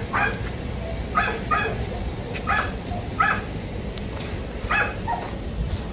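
A dog barking: about seven short barks at uneven intervals.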